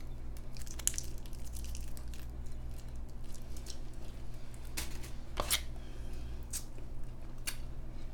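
Crinkling and clicking of a plastic condiment packet and food packaging being handled while mustard is squeezed onto a croissant. The crinkles come in short bursts, the strongest about five seconds in, over a steady low hum.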